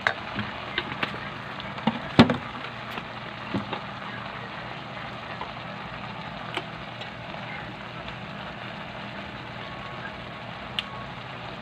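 White plastic ladle stirring and knocking against an aluminium wok of cooking banana heart: a handful of sharp knocks, the loudest about two seconds in, over a steady hiss.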